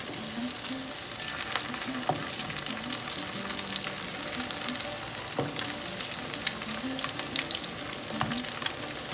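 Potato pancakes frying in hot oil in a skillet, a steady sizzle full of small crackles and pops, with a few sharper clicks of a spatula against the pan as the pancakes are turned and lifted.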